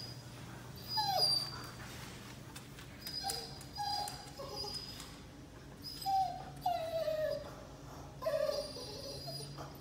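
Australian Shepherd whining in a series of short whimpers, each sliding down in pitch, about seven in all, over a faint steady low hum.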